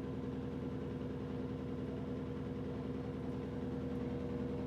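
Electrolux LED14 washing machine in its spin cycle at medium speed: a steady motor hum with a constant tone.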